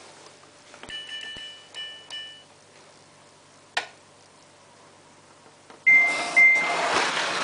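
Samsung WF8804RPA washing machine control panel beeping: a short run of electronic tones about a second in, a single click near the middle, then two more beeps just before the end as a loud rushing noise starts.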